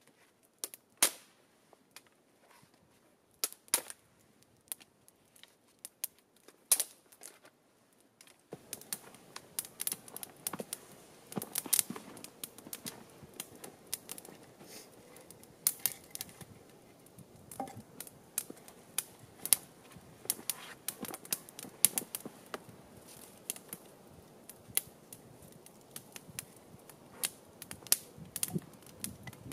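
Dry sticks snapping and a small wood campfire crackling with sharp pops. Isolated snaps at first, then from about eight seconds in frequent crackles over a faint steady hiss.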